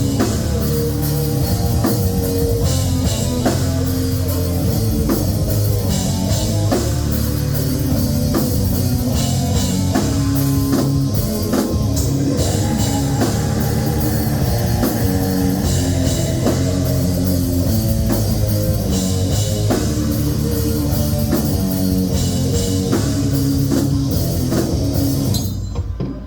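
Live metal band playing, with guitars and a drum kit driving a steady beat, then stopping sharply near the end as the song finishes.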